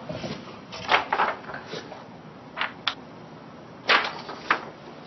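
Sheets of drawing paper rustling as they are handled, in a handful of short bursts.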